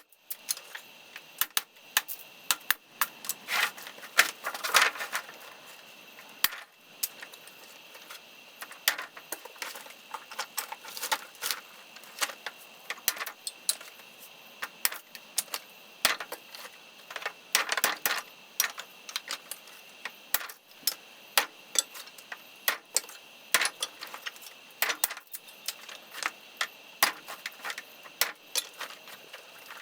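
Dry firewood branches being worked by hand: irregular sharp clicks and knocks of wood on wood, with a few short scraping bursts.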